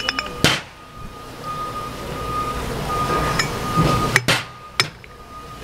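Metal knocks and clinks from a 2-inch steel mud gate valve being handled and turned by hand on a steel workbench: one sharp knock about half a second in and two more near the end, over a steady low shop rumble and a faint, intermittent high-pitched tone.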